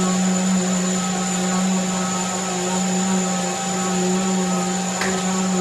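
Festool electric sander running at a steady speed: a constant hum with a thin high whine above it. There is a single short click about five seconds in.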